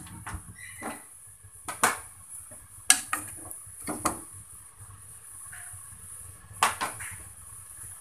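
A utensil knocking and clinking against a metal cooking pot of eggplant, tofu and coconut milk: several sharp, separate knocks spaced a second or so apart.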